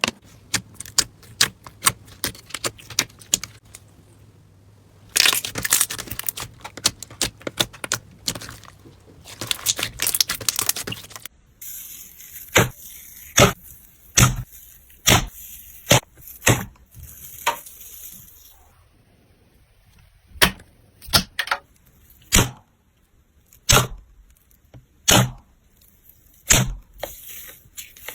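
Slime being squeezed and pressed by hand, giving sharp crackles and pops: a dense run of crackling near the middle, then single loud snaps about once a second.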